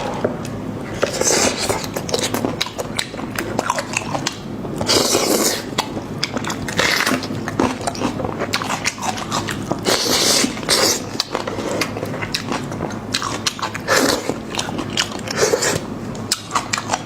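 Close-miked eating: a person biting and chewing meat from a sheep or goat head, with many short clicks and irregular bursts of mouth noise.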